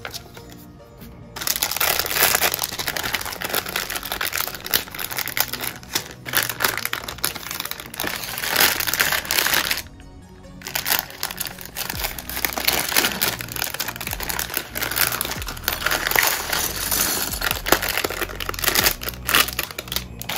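Plastic crinkling and rustling, most likely the kit's parts bags being handled and opened, in two long spells with a short break about ten seconds in, over lofi hip-hop background music.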